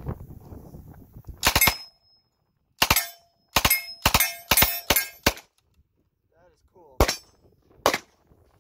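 West Hurley 1928 Thompson submachine gun in .45 ACP fired in about six short bursts of a few rounds each, packed into the first five seconds. Two single gunshots about a second apart follow near the end.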